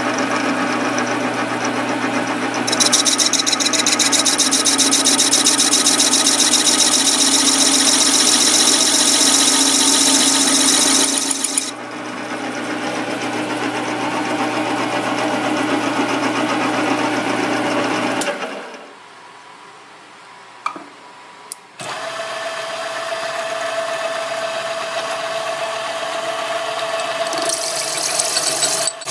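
A lathe runs with a steady hum, and for about eight seconds a loud hissing scrape of cutting or filing against the spinning work rides over it. About two-thirds of the way through it drops to a quieter lull for a few seconds. Then it runs again with a steady whine, and the scraping comes back near the end.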